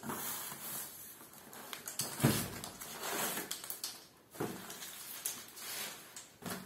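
A plastic-taped cardboard parcel being handled and shifted on a concrete floor: irregular rustling and scraping, with the strongest bump a little over two seconds in.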